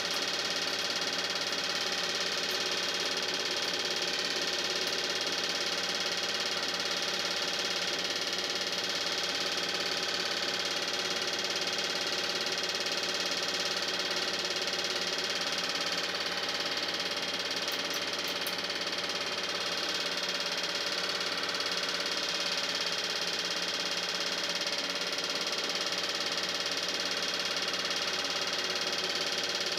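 Steady whirring run noise of a film projector, even and unbroken, with several held tones in it; the film itself carries no location sound.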